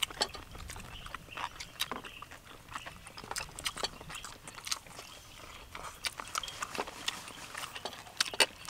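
People chewing and biting food, with wet mouth smacks and many short, sharp clicks scattered throughout.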